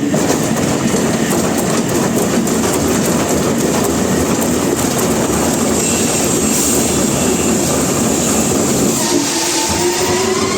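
Sawmill saw cutting through a log: a loud, dense, steady rumble and rattle of the machine and blade in the wood. Near the end a whine rises in pitch.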